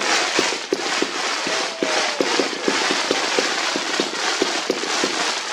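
Consumer fireworks cake (the 86-shot Chainsaw Box) firing a rapid volley, about four shots a second over a dense crackling hiss. It stops just at the end.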